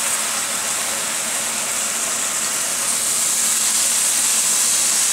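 Beef liver sizzling in a frying pan on high heat with butter and onion juices: a steady frying hiss as the slices are laid into the hot fat.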